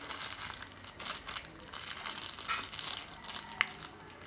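Foil-and-plastic instant-noodle seasoning sachets crinkling as they are torn and squeezed open by hand, with one sharper snap near the end.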